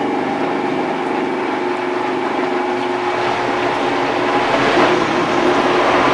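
Electric blender running steadily, blending soaked, peeled black-eyed beans with egg and water into a smooth batter. A steady motor whine with a grinding hiss, growing slightly louder.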